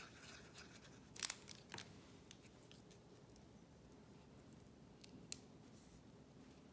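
Near silence with faint handling of cardstock: a few short taps and clicks, the sharpest about a second in and another soon after, as a glued paper circle is pressed down onto a paper treat holder.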